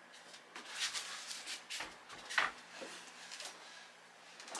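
A few short rustles and soft knocks of wrapped parcels being handled, the loudest about two and a half seconds in.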